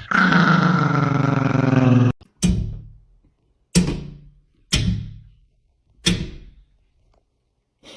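Musical instrument sound: a held, pitched note or chord for about two seconds, then four separate struck notes, each ringing out and fading.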